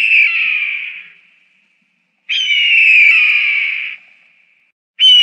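A bird of prey's harsh, hoarse scream, each call about a second and a half long and falling slightly in pitch. One call fades out about a second in, a second runs from about two to four seconds, and a third starts near the end.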